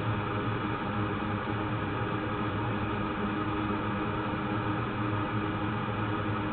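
Steady machine hum with a hiss, unchanging throughout.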